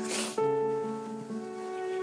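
Slow background music of held instrumental chords, moving to a new chord about half a second in, with a brief rush of noise at the very start.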